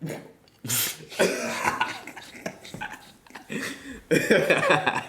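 A person coughs hard about a second in, followed by indistinct voices.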